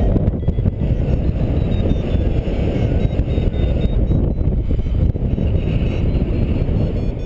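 Wind buffeting the microphone of a camera on a paraglider in flight: a steady, loud, low rumble that rises and falls with the airflow.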